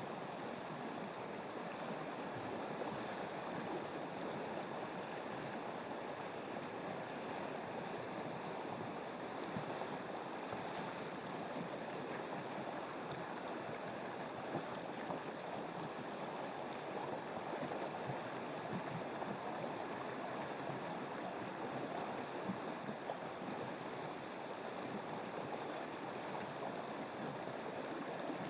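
Flowing river water, a steady, even rush.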